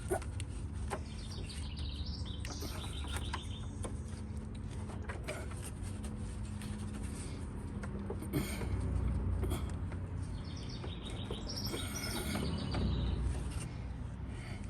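Small birds chirping in two quick bouts of rapid high notes, over a steady low hum, with scattered clicks and small knocks of hands working loose plastic clips under the dash.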